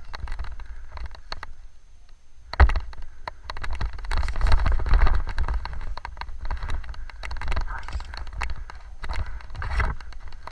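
Rustling, scraping and clicking handling noise close to the microphone over a low rumble, with one sharp knock about two and a half seconds in and a busier, louder stretch a little later.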